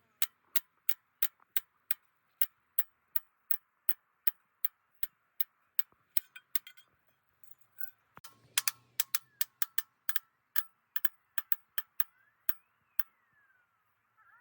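Regular sharp ticking, about three ticks a second, coming faster and louder for a stretch around the middle. Short rising-then-falling whistle-like sweeps are heard near the end.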